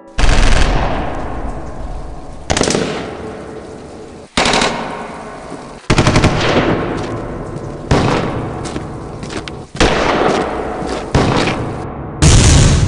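Repeated bursts of automatic gunfire, about eight in all and roughly one every one and a half to two seconds. Each starts sharply and trails off over a second or two.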